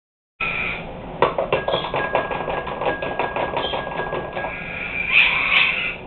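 A child's toy piano-xylophone clattering under rapid taps on its keys, several a second, with short plinking notes, then a louder, harsher burst near the end.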